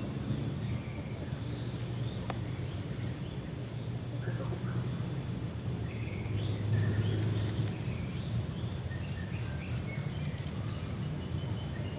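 Outdoor ambience: birds chirping in short scattered calls, more often in the second half, over a steady low hum and a thin, steady high-pitched whine.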